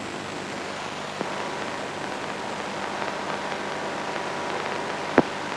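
Steady radio receiver hiss on an open channel with no voice on it, between two stations' transmissions, with faint steady hum tones under it. A faint click about a second in and a sharp click near the end.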